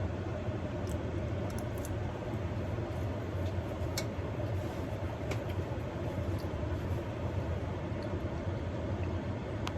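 Steady low background rumble and hiss, with a few faint sharp clicks scattered through it.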